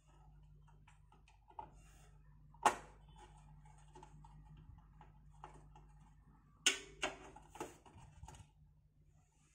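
Screws being driven to fix a motherboard into a metal PC cabinet: small clicks and taps of the screwdriver and parts, with a few sharper knocks, the loudest about three seconds in and three more around seven seconds in, over a steady low hum.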